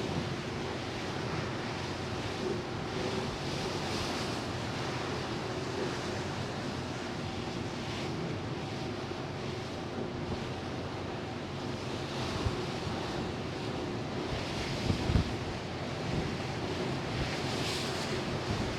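Sea water rushing past a ferry's hull, with wind buffeting the microphone and a steady hum from the ship underneath. A few stronger wind gusts come about two-thirds of the way through.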